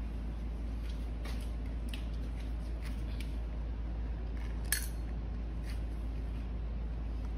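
A few faint clicks as the plastic cup is handled, then one sharp clink about four and a half seconds in as two pieces of dry kibble drop into a stainless steel bowl. A steady low hum runs underneath.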